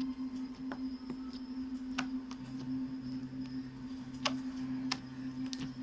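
Several sharp, separate clicks over a steady low hum, with a second low tone cutting in and out from about halfway through.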